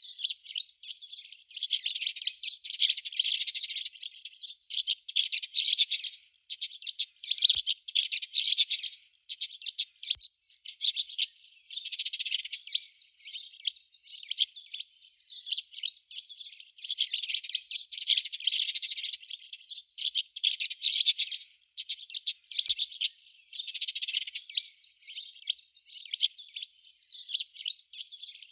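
A flock of sparrows chirping: many short, high-pitched chirps overlapping in a continuous chatter, coming in clusters with brief lulls.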